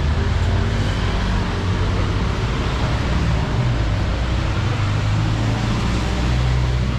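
City street traffic: vehicle engines running close by, a steady low rumble under an even hiss.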